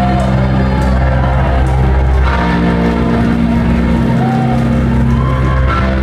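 Live rock band playing loud through the venue PA: held electric guitar chords over a heavy, steady low end, with a few short arching pitch glides near the start and again late on.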